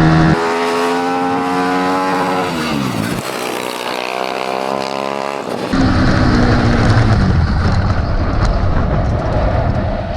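Engine-swapped golf cart's 400cc Yamaha dirt bike engine running hard under way, its pitch holding and then dropping as the throttle comes off. In the second half a loud rushing noise from the moving cart lies over the engine.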